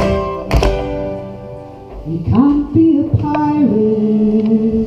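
Live acoustic band of guitar, small strummed string instrument and accordion playing a song with the cast singing. Two strummed chords sound near the start and die away, and a long held note follows in the second half.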